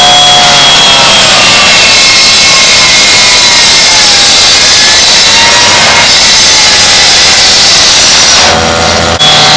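Gas-powered rotary cut-off saw (rescue saw) running at high speed, its abrasive blade grinding through a car's sheet-metal hood. The engine note drops briefly near the end, then picks back up.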